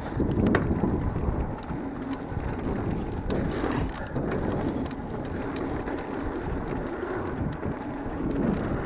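Mountain bike rolling fast down a dirt trail: steady wind rumble on the microphone and tyre noise on dirt, with frequent sharp clicks and rattles from the bike over rough ground.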